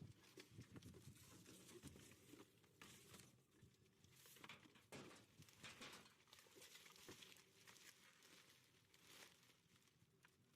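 Near silence, with faint rustling and a few light clicks.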